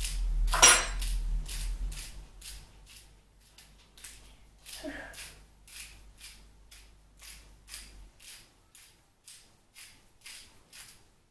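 Hand-twisted salt grinder crunching salt, short gritty strokes about twice a second, loudest about a second in and getting fainter.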